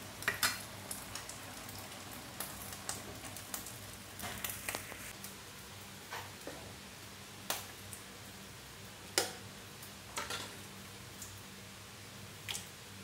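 A metal ladle clinking and scraping against a cooking pot and a ceramic bowl while a soupy stew is ladled out: a dozen or so separate sharp knocks at uneven intervals, over a faint steady hum.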